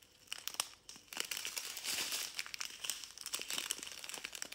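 A strip of small clear plastic zip-lock bags of diamond painting drills crinkling as it is handled and turned over: a dense run of small crackles that picks up about a second in.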